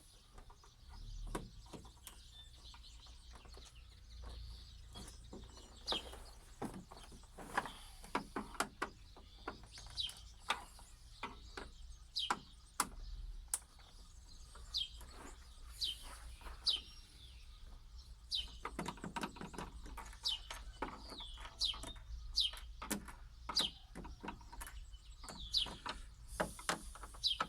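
Small birds chirping over and over in short calls, mixed with frequent sharp clicks and taps of a screwdriver and screws working on a TV's plastic back casing.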